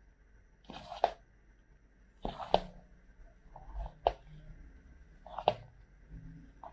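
Instant cup ramen noodles being stirred and lifted with a fork through thick spicy sauce: four short wet squelching smacks about a second and a half apart.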